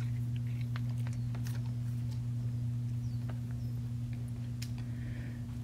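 A steady low hum, with a few faint, scattered clicks.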